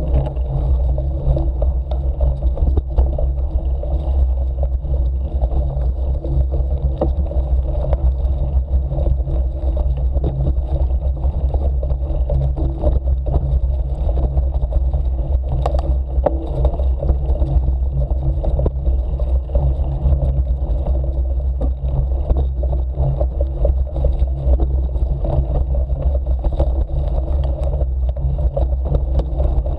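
Continuous low rumble with fine irregular rattling from a camera mounted on a bicycle rolling along a dirt forest trail.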